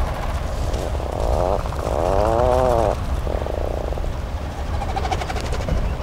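Atlantic puffins calling: a string of low, drawn-out calls, about four in all, the loudest starting about two seconds in and lasting about a second, its pitch rising and then falling.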